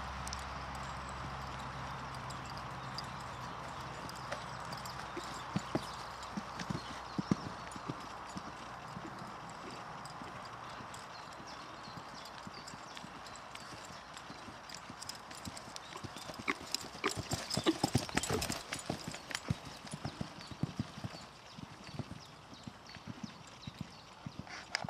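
Hoofbeats of a Selle Français gelding cantering on arena sand, dull strokes that come thickest and loudest about two-thirds of the way through. A steady background noise fades out over the first few seconds.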